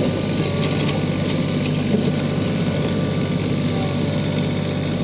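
Kioti CK4010 compact tractor's diesel engine running steadily as the tractor moves about in the snow with its front loader.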